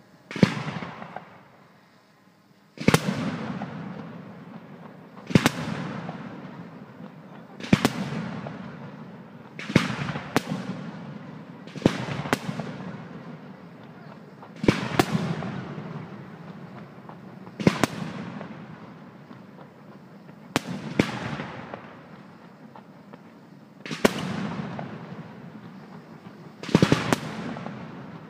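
Aerial firework shells bursting in the sky every two to three seconds, some in quick pairs. Each burst is a sharp bang followed by a long echo that fades away.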